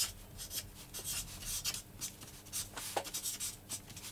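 Pen writing on paper in a series of short, irregular strokes.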